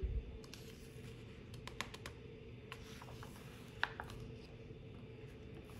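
Faint paper handling as a picture book's page is turned and pressed flat by hand: soft rustles and a few scattered small ticks.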